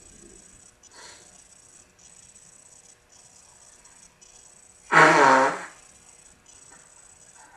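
One loud sneeze about five seconds in, lasting under a second, part of a sneezing fit.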